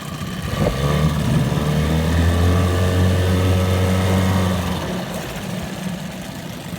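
1982 Evinrude 9.9 hp two-stroke twin outboard running in reverse: throttle opened about a second in, held steady for about four seconds, then eased back to idle.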